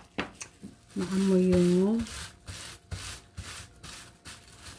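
Plastic-gloved hands rubbing and smoothing a sheet of dried seaweed on a bamboo rolling mat, a run of scratchy strokes at about three a second. About a second in, a woman's voice holds one brief hummed note.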